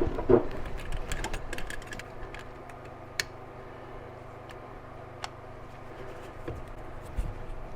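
Scattered light clicks and taps of hands and tools working an old rubber heater hose off its fitting in a car's engine bay, starting with a brief louder scrape of handling. A sharp click stands out about three seconds in and another about five seconds in.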